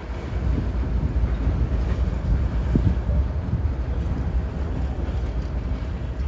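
LNG-powered freight locomotives of a Florida East Coast Railway train passing at low speed: a steady low engine rumble mixed with rolling wheel noise.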